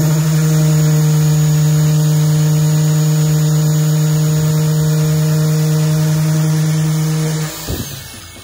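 Random orbital sander running at a steady pitch with a strong hum, sanding body filler on a car hardtop. It shuts off about seven and a half seconds in and winds down.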